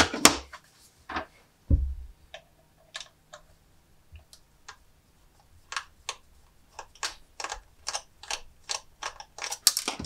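Small sharp clicks and taps of a plastic video doorbell casing being handled and worked at by hand, sparse at first and then coming quickly, about three or four a second, in the second half. A single low knock about two seconds in, as of something set down on the tabletop.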